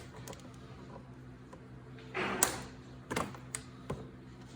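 Plastic zip ties being cut with cutters: a short rustle of handling ending in a sharp snap about halfway through, then a few lighter clicks.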